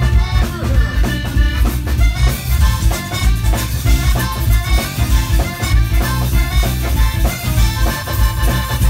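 Live zydeco band playing an up-tempo number with a steady beat: accordion leading over electric guitar, bass guitar, drum kit and a scraped rubboard (frottoir).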